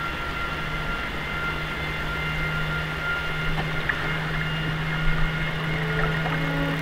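Fast passenger ferry under way, its engines giving a steady low hum with a fainter steady whine above it over a wash of noise.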